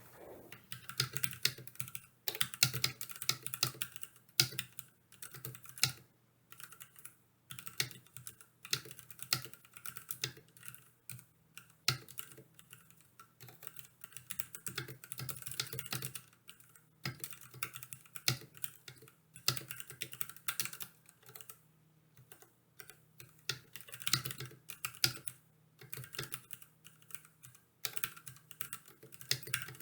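Typing on a Ducky Mecha SF mechanical keyboard: fast runs of keystroke clacks in bursts, broken by short pauses.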